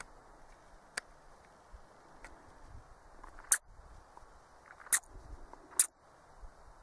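Short, sharp squeaks from a predator call used to lure a fox, four of them, the last three loudest and close together, over a faint steady outdoor background.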